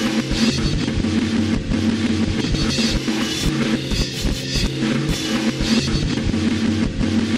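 Background rock music with a drum kit keeping a steady beat.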